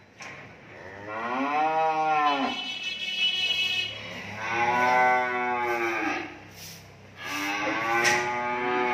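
Cattle mooing: three long moos, each about one and a half to two seconds, each rising and then falling in pitch. The last one runs on past the end.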